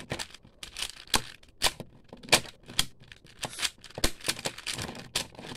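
Non-magnetic QiYi 4x4 plastic puzzle cube being turned by hand: a fast, irregular run of plastic clicks and clacks as its layers turn. Its owner finds it turns much worse than her other puzzles and catches mid-turn.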